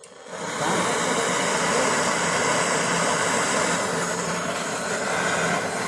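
Brazing torch flame hissing steadily as a copper tube joint is heated. The sound drops out briefly right at the start, then comes back.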